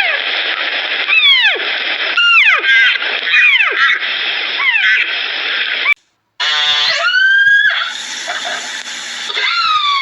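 Several sharp animal cries, each falling steeply in pitch, then a brief cut and a different animal's call that rises and holds, with another falling call near the end.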